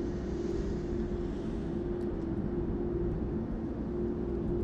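Composed sci-fi ambient soundscape of a shipyard: a steady low machinery rumble with a held droning hum, and a few faint high ticks about two seconds in.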